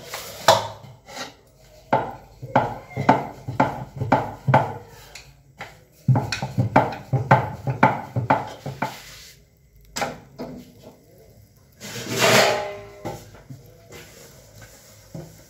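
Stiff maida dough being kneaded and shaped by hand on a wooden board: a run of dull thumps, two to three a second, for about nine seconds. About twelve seconds in, a dough ball is tossed in flour inside a steel bowl, giving a short scraping rattle.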